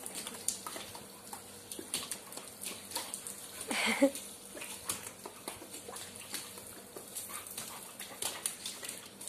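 A five-month-old puppy playing on a tiled floor: scattered light clicks and taps through the whole stretch, and one short, bark-like cry about four seconds in, the loudest sound.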